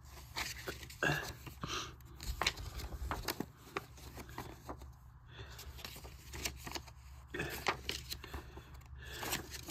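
Paper inserts and packaging being handled by hand: light rustling with many scattered small clicks and taps.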